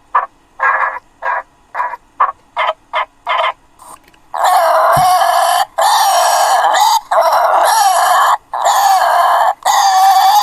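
Alien raccoon creature sound effect: a run of about seven short chirps, then, about four seconds in, long harsh screeching calls of about a second each with short breaks between.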